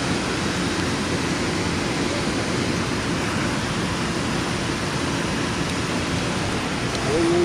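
Steady rushing of fast-flowing river water below a dam, an even hiss with no pauses. A brief voice is heard near the end.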